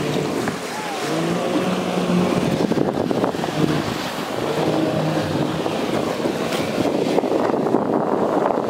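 Speedboat engine running at speed, a steady hum that shifts pitch now and then, under the rush of water and spray, with wind on the microphone.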